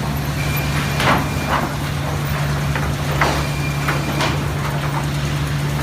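Sawmill machinery running with a steady low hum, with irregular sharp knocks and clatter every half second to a second.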